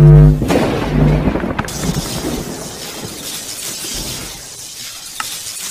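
Intro sound effects for a logo animation. A deep synth tone cuts off just after the start, a shattering crash follows, and it fades away into a soft hiss.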